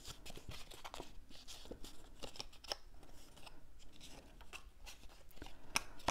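Stiff cardstock pieces being folded and handled by hand: faint, irregular rustles and crisp clicks of the paper, with one sharper click near the end.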